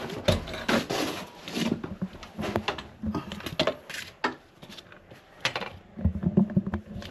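Irregular knocks, clatters and scraping of wood and clutter being shifted by hand, as a piled heap is searched.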